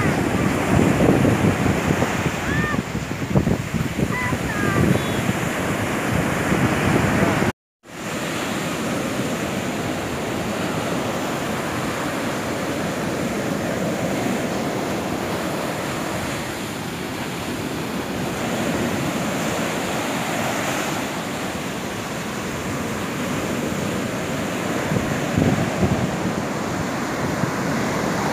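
Ocean surf breaking and washing up a sandy beach, with wind on the microphone. The sound cuts out for a moment about eight seconds in.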